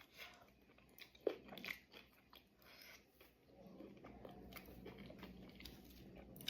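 Faint sounds of a person eating: chewing with small crunches and clicks, the sharpest a little over a second in.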